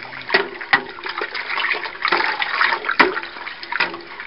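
Honey and water being stirred in a stainless steel stockpot with a spoon: liquid swishing and sloshing, with the spoon knocking against the pot's side several times, loudest about three seconds in.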